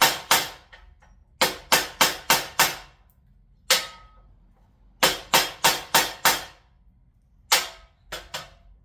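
The edge of a 1095 steel mini hunter knife being chopped repeatedly into a piece of wooden axe handle: sharp knocks in runs of about five, roughly three a second, with single strikes and pauses between.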